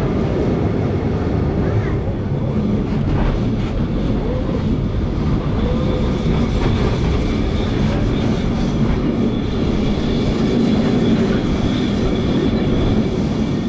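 Lisbon Remodelado heritage tram heard from aboard as it runs uphill: a steady, loud rumble of its motors and steel wheels on the rails, with a faint high tone held above it.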